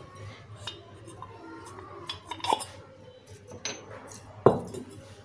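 Light metallic clicks and knocks from a piston ring being worked in a motorcycle cylinder bore and the finned cylinder block being handled, with the loudest knock near the end.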